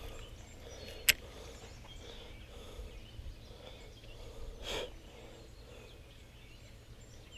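Quiet outdoor creek ambience with a single sharp click about a second in and a short soft burst a little before five seconds in.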